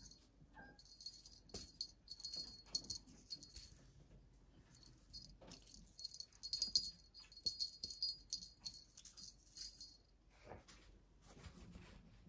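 Small bell on a wand cat toy jingling in shaken bursts, with a pause around four to five seconds in and light taps and rustles between.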